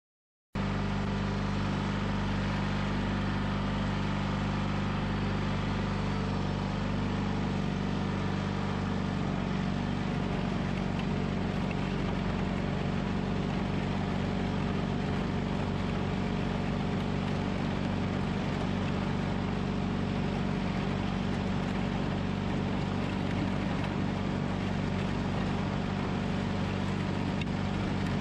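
John Deere 420 garden tractor's air-cooled two-cylinder Onan engine running steadily as the tractor drives and pushes snow with its front blade. It starts abruptly about half a second in.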